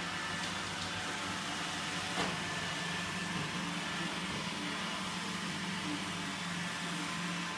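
Robot vacuum cleaner running: a steady motor hum with a hiss from its suction and brushes as it cleans along the baseboard, with one light knock about two seconds in.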